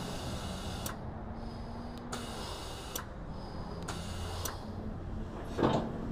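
Air-operated steel ramp on a truck carrier deck unfolding: an air hiss that cuts off about a second in, then a run of sharp clicks about once a second, and one loud clunk near the end as the ramp swings over.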